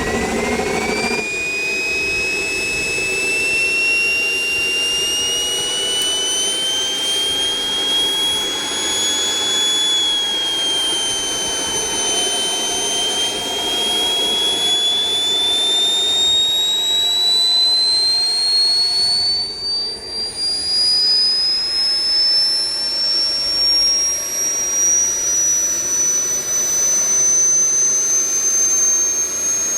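Model jet turbine engines (JetsMunt Merlin) running with a high whine that climbs slowly in pitch as they spool up, sagging briefly about twelve seconds in before rising steadily again.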